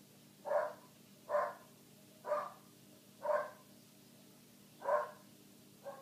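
A foxhound/springer spaniel mix dog barking: six single barks about a second apart, the last one shorter and fainter.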